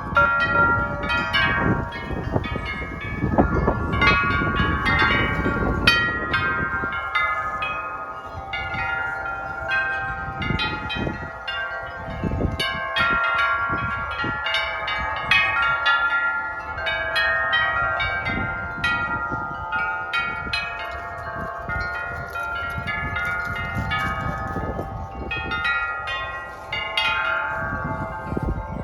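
Several tuned metal-tube wind chimes ringing continuously in gusty wind, many overlapping notes struck again and again. Wind rumbles on the microphone for the first several seconds, with shorter gusts later.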